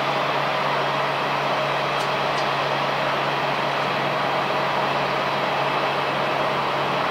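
Steady turbine rush with a low hum from an Airbus A320-211 during pushback by a tow tug, with two faint clicks about two seconds in.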